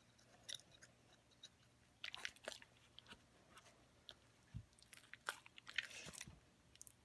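Faint, scattered clicks and short scrapes from a metal hand scaler working tartar off a dog's teeth, along with the handling of a paper towel wiping them. There is a soft low thump about halfway through.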